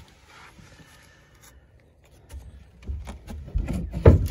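A knife blade scraping along a peeled log, scoring the notch line so the wood fibres don't split out when the notch is cut. From about halfway through, dull low thumps join the scraping, the loudest just before the end.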